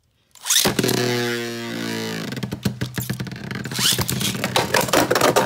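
Beyblade Burst tops (Savior Valkyrie, then Astral Spriggan) launched from a string launcher into a plastic stadium. A loud rip about half a second in is followed by a whirring that falls in pitch, then a steady spinning hum. A second rip comes near four seconds, then rapid clicks as the tops strike each other and the stadium wall.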